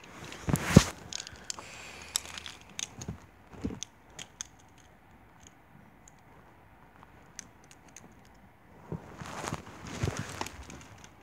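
Small plastic toy figures being picked up and moved around a toy wrestling ring: scattered clicks and knocks, with a sharp knock about a second in, a quieter stretch, then rustling handling near the end.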